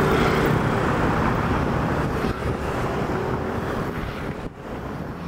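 Motor vehicle running, with road and wind noise and a low engine hum, gradually dying away.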